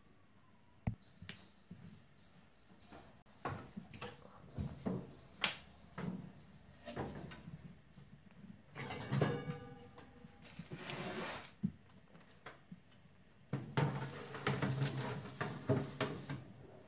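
A metal oven rack and a baking tray being handled in an electric oven: a string of knocks and clicks, a short ringing metallic scrape, then a run of clatter as the tray is slid onto the rack near the end.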